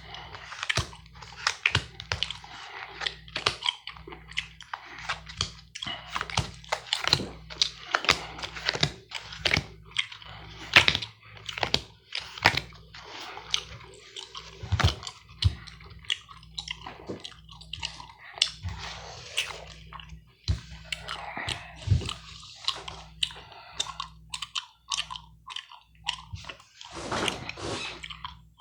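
Gum chewing: a dense, irregular run of wet smacks and clicks, with a few short soft rustling stretches in between.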